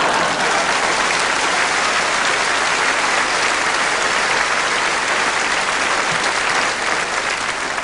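Studio audience applauding and laughing in a steady round of clapping after a joke's punchline, easing off near the end.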